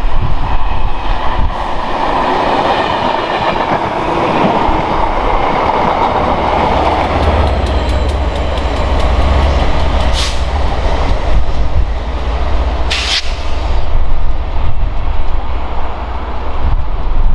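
A Class 67 diesel locomotive and its passenger coaches pass close by: a steady engine drone and rumble, with the wheels clicking rapidly over the rail joints. Two short high-pitched sounds come through about ten and thirteen seconds in.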